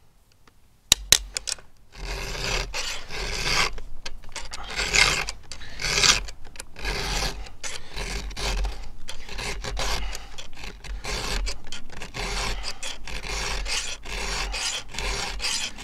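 A round chainsaw file rasping back and forth across a cutter tooth of a 3/8-pitch chain on a Stihl MS661, in repeated strokes. A few sharp clicks come about a second in, before the filing starts.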